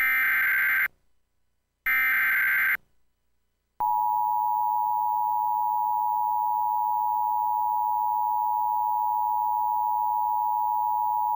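Emergency Alert System broadcast signal: the last two of three one-second SAME header data bursts, a buzzy electronic screech with short silences between, then, about four seconds in, the steady two-tone EAS attention signal (853 and 960 Hz together) that keeps sounding. This sequence announces an emergency alert about to be read, here a severe thunderstorm warning.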